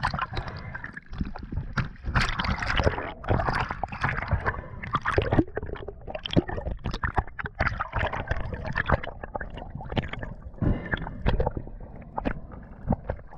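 Water splashing and gurgling around a camera as it goes under the surface with a diving freediver, then an irregular string of crackles and knocks of water moving against the submerged camera.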